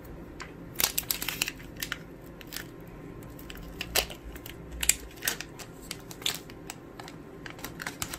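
Clear plastic bags crinkling and crackling as they are handled, in irregular sharp crackles starting about a second in.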